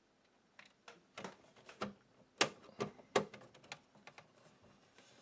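Irregular clicks and knocks from handling vintage VHS video equipment, with two sharper knocks about two and a half and three seconds in.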